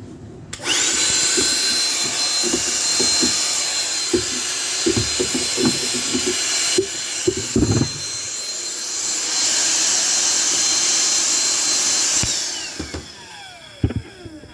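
Shop vacuum switched on, running steadily with a high motor whine and some debris rattling through the hose, then switched off and spinning down in a falling whine near the end.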